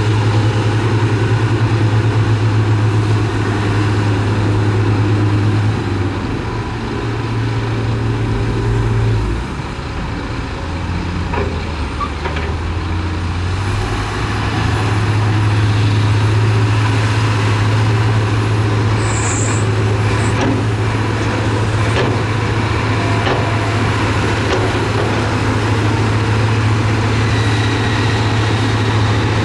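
Heavy diesel engine of earthmoving equipment running steadily under load. About a third of the way through it eases off and drops in pitch, then climbs back up. A short high squeal comes about two-thirds through.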